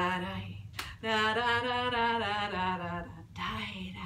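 A woman singing unaccompanied: a single sharp clap just before a second in, then a long held note with a wavering pitch lasting about two seconds, and another sung phrase starting near the end.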